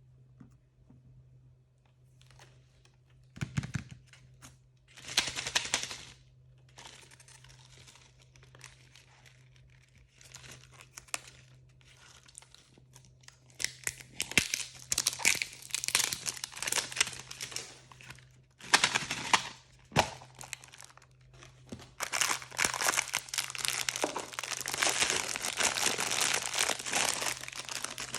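Blind-bag packaging being crinkled and torn open by hand, in irregular bursts that grow dense and continuous in the second half, with a soft thump early on. A faint steady low hum runs underneath.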